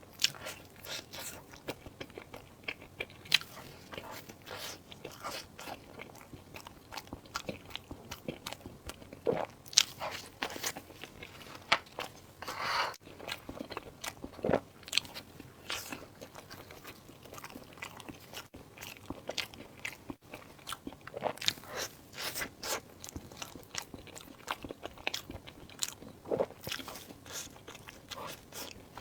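A person eating close to the microphone: irregular crunchy bites and wet chewing, with many sharp crackles.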